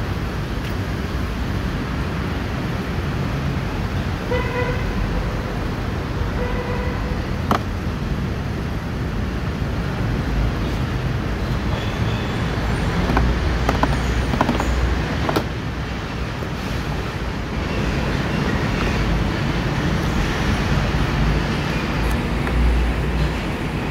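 Steady rumble of background road traffic, with two short car-horn toots about four and six and a half seconds in. Midway come a few sharp clicks as the door trim panel's plastic clips are pried loose with a plastic trim tool.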